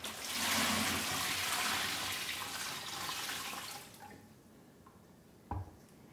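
Water pouring into a plastic briner bucket that holds a turkey in brine, running for about four seconds before it stops. A short knock follows near the end.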